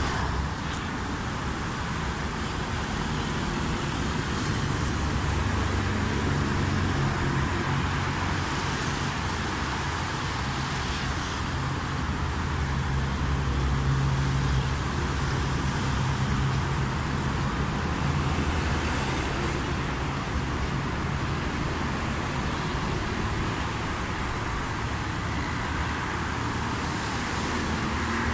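Boeing 777-200ER's GE90 jet engines on landing approach: a steady rumble with a low drone that swells a little about halfway through.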